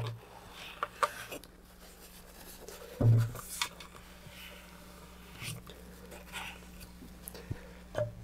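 Paper towel rubbing and rustling as it wipes the inside of a fiberglass rocket tube, with light handling clicks and one dull knock about three seconds in.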